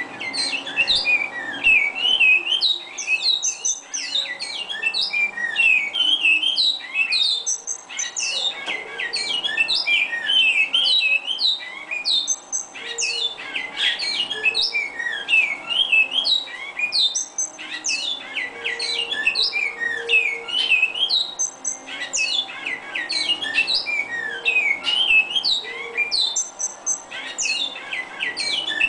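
Caged bicudos (great-billed seed finches) singing: a near-continuous stream of quick, sliding whistled chirps, with a few short pauses.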